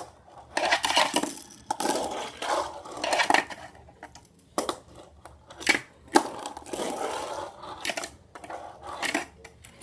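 Tech Deck fingerboard rolling and scraping over a plastic ramp and ledges, with several sharp clacks as the board's deck and trucks knock and land on the plastic.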